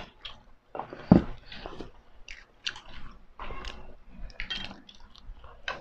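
Close-miked eating: crunchy bites and chewing of a fried dynamite roll (a chili pepper stuffed with ground meat, wrapped and deep-fried), in short irregular crackles. One sharp knock about a second in.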